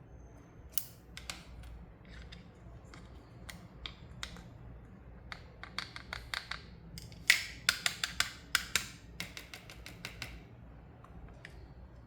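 Sharp clicks and taps from handling small toy pieces and packaging, scattered at first and then coming quickly in a louder run from about seven to ten seconds in.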